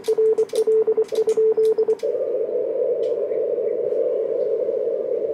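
Morse code (CW) sidetone from a Kenwood TS-890 transceiver: a steady mid-pitched beep keyed in quick dots and dashes while it sends a test call to the Reverse Beacon Network. About two seconds in the keying stops, and the receiver's hiss, narrowed by the CW filter, takes over.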